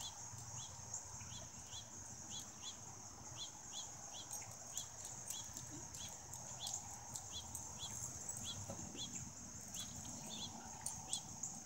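Insects droning steadily and high-pitched, with a short chirp repeating about twice a second and a few faint clicks over a low rumble.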